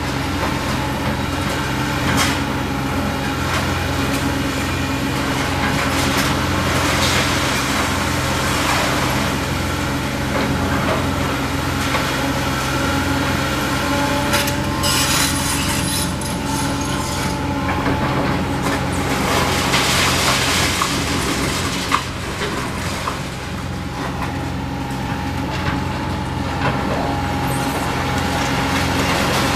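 Diesel engine of a tracked hydraulic excavator running steadily as it demolishes a building, with bursts of crashing and scraping debris several times.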